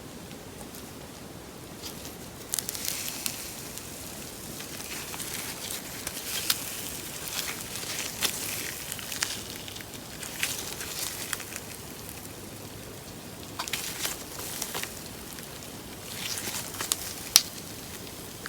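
Slime being kneaded and squished by hand, giving sticky crackles and small clicking pops in several runs, with one sharper pop near the end.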